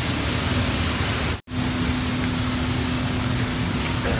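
Steady, loud noise of rice mill machinery running. It drops out briefly about a second and a half in, then resumes with a steady low hum under it.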